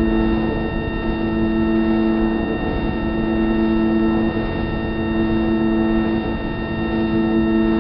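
Ambient background music: a sustained drone of several low held tones, steady throughout.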